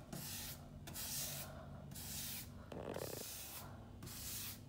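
Paintbrush swishing back and forth across a painted wooden tabletop while brushing on a thin, watery top coat: about five strokes, each a short soft hiss with a brief pause between.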